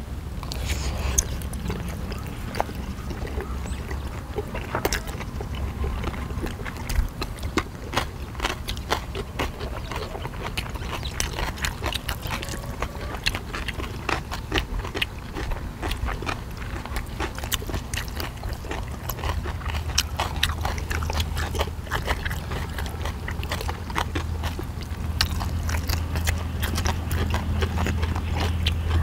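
Several people chewing mouthfuls of pheasant dumplings, with many small wet mouth clicks close to the microphone, over a low steady rumble.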